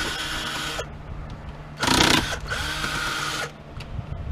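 Cordless drill-driver running in two short bursts, a second or two each, as it backs screws out of a typewriter.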